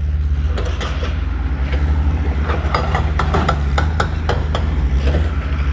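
Construction-site noise: a steady low rumble with a run of sharp knocks about three to four seconds in.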